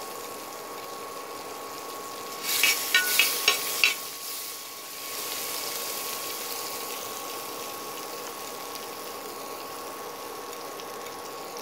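Chopped onion and green chilli sizzling in melted butter on a flat iron tawa, a steady frying hiss. A short run of sharp clicks and scrapes comes about two and a half seconds in and stops by four seconds.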